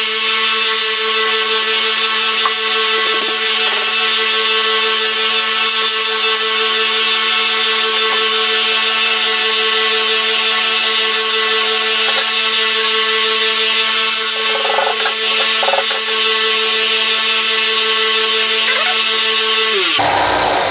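Benchtop belt sander with a coarse 40-grit belt running steadily, the wooden handle of a forged machete pressed to it now and then. The motor is switched off about twenty seconds in and its pitch falls as it spins down.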